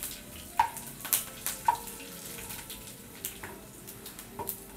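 Hot oil in a kadai sizzling, with about eight sharp pops scattered through it: curry leaves and dried red chillies spluttering with mustard seeds in a South Indian tempering.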